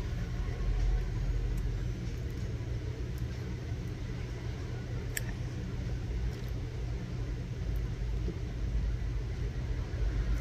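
Steady low background rumble and hum, with a few faint clicks, the clearest about five seconds in.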